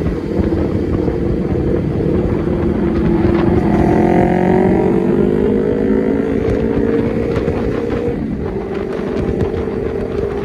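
Vehicle engine running with wind buffeting the microphone. The engine's pitch climbs steadily through the middle, then drops back suddenly about eight seconds in.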